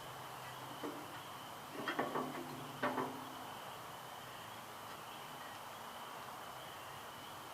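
Steady high insect chirring, with a few short ringing knocks in the first three seconds.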